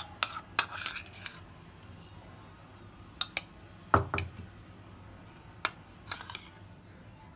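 Metal spoon clinking and scraping against ceramic bowls as mayonnaise is spooned from one bowl into another: scattered sharp clicks, with one louder knock about four seconds in.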